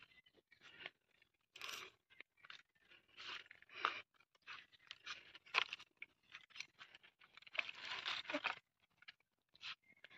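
Footsteps crunching through dry fallen leaves on a woodland path, an uneven run of faint crackling steps.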